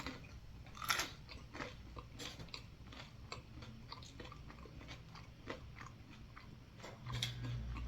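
A person chewing food close to the microphone: irregular soft crunches and wet mouth clicks, with a sharper crunch about a second in.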